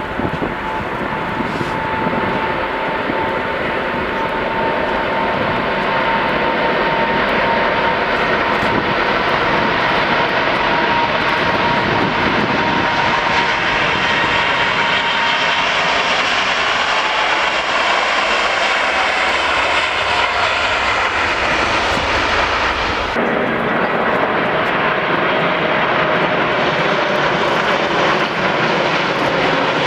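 Airliner engines running loud and close as an aircraft passes, a dense noise with whining tones that slowly drift in pitch. The sound changes abruptly about three-quarters of the way through.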